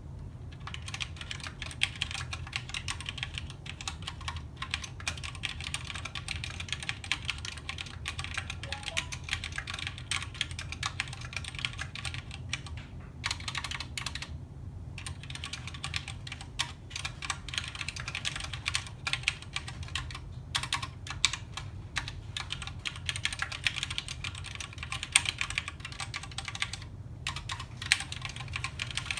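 Continuous typing on a custom ten-keyless mechanical keyboard: a dense, fast stream of key clicks, broken by a few short pauses.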